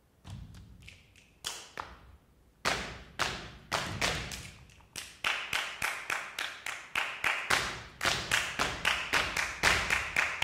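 Dancer's shoes striking the stage floor in percussive footwork: a few spaced stamps at first, then a fast, even run of taps at about four to five a second from about five seconds in.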